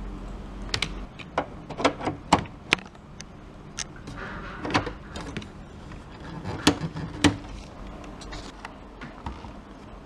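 Hands handling a USB-to-parallel adapter cable and plugging its connector into the printer port: a run of sharp clicks and knocks from the plastic and metal connectors and cable, with a brief rustle about four seconds in.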